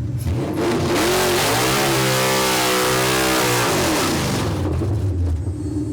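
Drag race car engine at full throttle, its pitch climbing from about a second in and holding high, then falling away after about four seconds.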